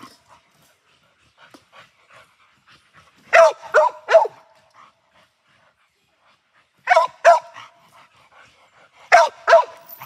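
A dog barking in three short bunches: three barks about three and a half seconds in, two about seven seconds in and two more near the end, with quiet gaps between.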